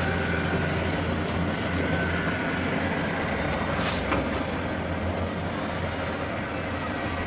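A steady low droning hum under a noisy rumble, with a short scratchy sound about four seconds in.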